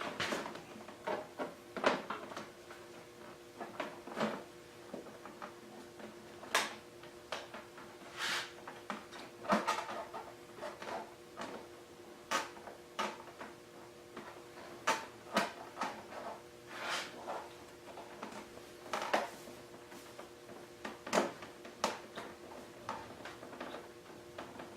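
Irregular clicks and knocks of hands fitting plastic motorcycle fairing parts and wiring, a few to several seconds apart, over a faint steady hum.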